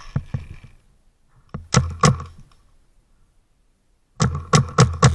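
Paintball marker firing in three short volleys of sharp pops, each with a low thud: a few shots at the start, three or four about a second and a half in, then four or five rapid shots near the end, about four a second.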